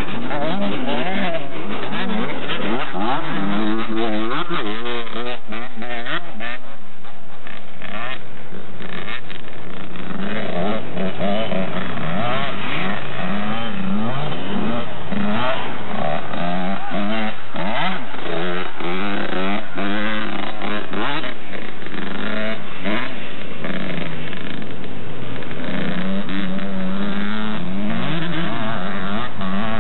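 Off-road motorcycle engines revving on a dirt track, their pitch rising and falling over and over as the riders accelerate and back off, with short stretches held at a steady pitch.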